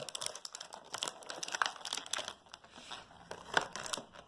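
Plastic blister packaging crinkling and crackling in irregular clicks as small toy figures are popped out of it.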